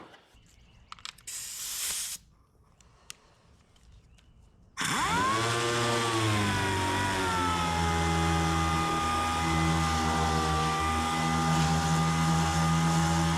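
A motor-driven power tool switches on abruptly about five seconds in and runs steadily, a whine that settles in pitch over a strong low hum. Before it there is only faint shop quiet with a brief hiss.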